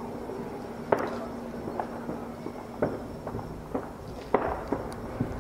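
Fireworks going off: a string of sharp bangs and pops at uneven intervals, the loudest about one second and about four and a half seconds in.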